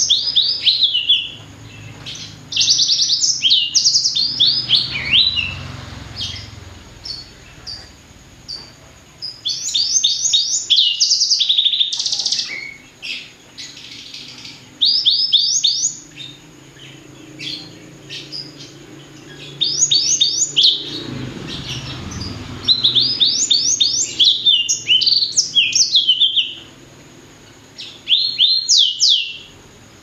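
A blacksang, a hybrid finch bred from a blackthroat and a sanger, singing in loud, high phrases of rapid trills and fast repeated down-slurred notes. The phrases come in bursts of one to three seconds, separated by short pauses.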